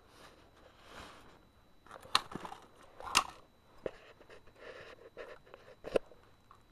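Wiring, circuit boards and metal parts of a 1978 Zenith television chassis being handled: rustling and several sharp clicks and knocks, the loudest about two, three and six seconds in.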